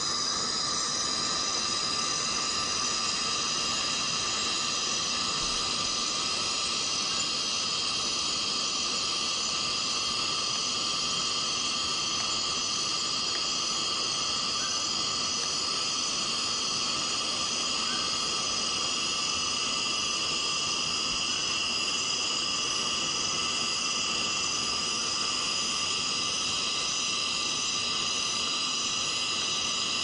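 Steady chorus of Borneo rainforest cicadas: several high, even buzzing tones held without a break over a faint hiss.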